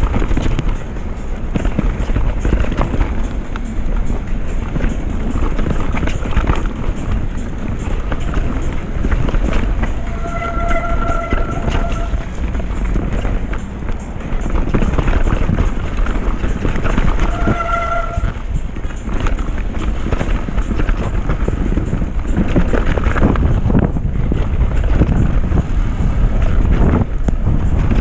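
Mountain bike descending a muddy dirt trail at speed: wind on the camera microphone, tyre and trail noise, and the bike rattling over bumps. Twice, about ten and seventeen seconds in, there is a brief steady squeal.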